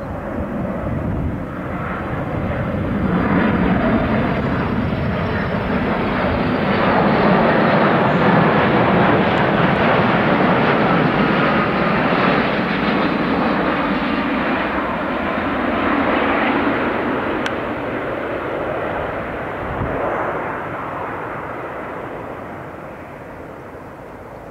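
Twin turbofan engines of a Boeing 787 airliner during a low, steeply banked pass: a loud rushing roar that swells over the first few seconds, holds, and fades slowly as the jet moves away near the end.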